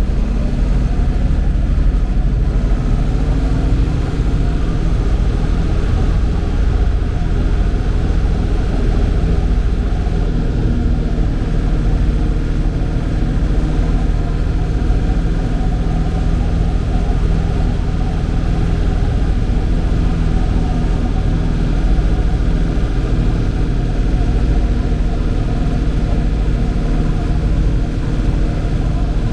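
Tractor engine running steadily under way, a continuous low rumble with an even engine note.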